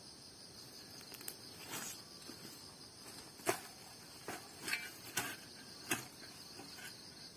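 Insects trilling steadily at one high pitch, with a handful of short knocks and scuffs from about a second in, the loudest near the middle, as a long-handled spade is handled, set down and pushed into garden soil among footsteps in rubber boots.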